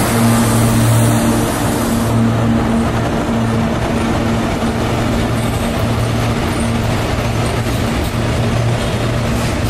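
WDP-4D diesel locomotive, with its two-stroke EMD engine, passing close by: a steady low engine hum over the continuous noise of a heavy train's wheels on the rails.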